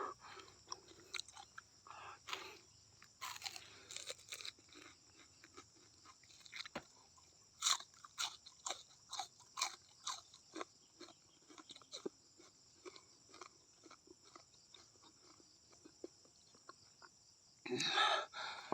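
Close-up chewing and crunching of raw banana stem: irregular wet crunches and mouth clicks, with a louder, longer crunch about a second before the end.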